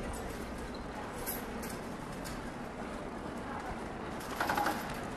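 City street ambience: a steady background hum with a sharp tap about a second in and a few fainter taps. A brief burst of distant voices comes near the end.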